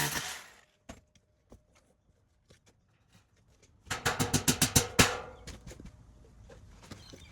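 A few scattered clicks, then a quick run of sharp knocks, about ten a second for just over a second, from work with tools or hardware.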